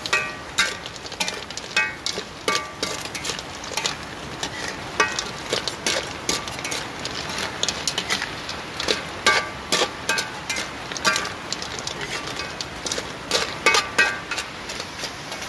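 Metal spatula scraping and knocking against a metal wok while snails and crabs are stir-fried, over a steady sizzle of hot oil; many of the strikes ring briefly.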